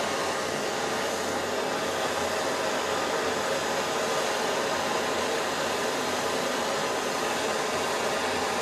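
Hand-held gas torch flame burning with a steady hiss as it heats a stainless steel to copper tube joint coated in black flux, bringing it up to temperature for silver brazing.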